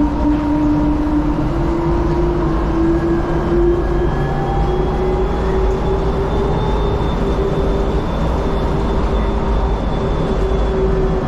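DFW Skylink automated people-mover train running on its elevated guideway, heard from inside the car: a steady running rumble under an electric drive whine that rises in pitch over the first few seconds as the train gathers speed, then holds and dips slightly near the end.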